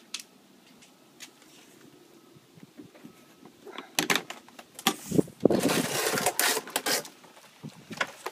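A white vinyl fence gate being pushed open with the phone pressed against it: a clatter of knocks about four seconds in, then loud scraping and rubbing right at the microphone, and a few more knocks near the end.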